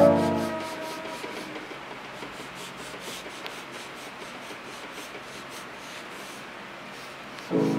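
A white oil pastel stick is rubbed back and forth on paper in quick, repeated scratchy strokes, blending the pastel layers.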